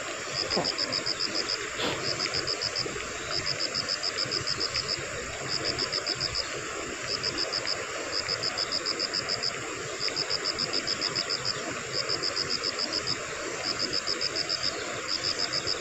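A wild animal calls over and over in short bursts of fast, high, even pulses, about ten a second, each burst lasting up to a second and a half, with brief gaps between. A steady rushing hiss lies underneath.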